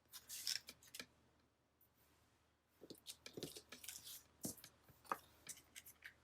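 Faint paper and sticker handling: a short crinkly rustle at the start, then a run of small clicks and taps as a sticker is peeled and pressed into place.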